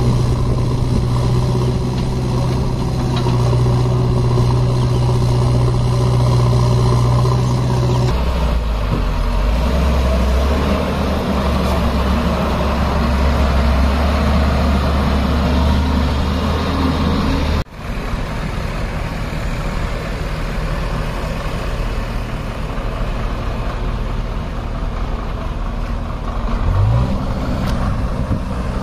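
Heavy diesel engines of a JCB backhoe loader and an Ashok Leyland six-wheel tipper truck running steadily. The engine note drops lower about eight seconds in, breaks off abruptly for an instant just past the middle, then carries on, with a short rev near the end.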